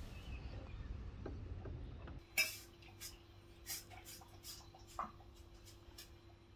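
A spaniel eating from a stainless steel bowl: sharp irregular clicks and clinks of food and teeth against the metal, the loudest about two seconds in. Before that, a low rumble of wind on the microphone.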